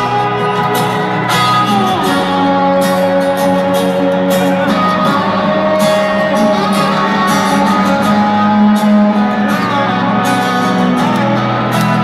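Rock band playing live with electric guitars, drums and singing, recorded from the audience in an arena.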